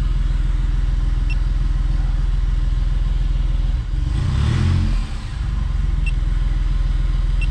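Smart Fortwo's three-cylinder engine idling steadily in neutral, still cold. About four seconds in there is a brief louder rush lasting about a second.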